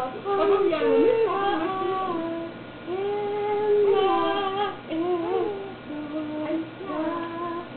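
A woman singing a slow melody unaccompanied, holding long notes that slide between pitches, some with a slight waver.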